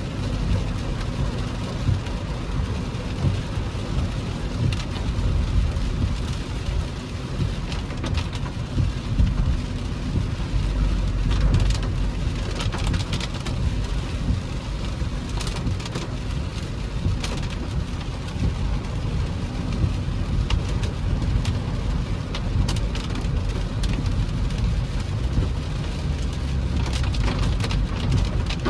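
Hailstones and heavy rain pelting a car's body and windshield: a dense steady hiss with many sharp ticks of impacts, over a low rumble.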